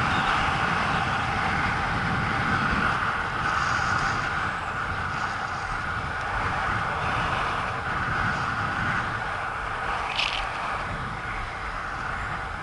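Inline speed skate wheels rolling on an asphalt path, with wind rushing over the microphone. The sound grows gradually quieter as the skater slows, with a brief high scrape about ten seconds in.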